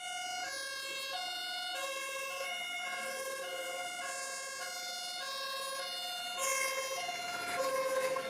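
Toy fire engine's electronic two-tone siren, switching steadily between a higher and a lower note about every half second.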